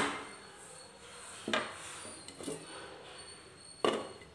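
Wooden spatula knocking and scraping against the side of a metal pressure-cooker pan while stirring cooked greens, a few separate knocks, then a sharper clink of a glass lid on the pan rim near the end.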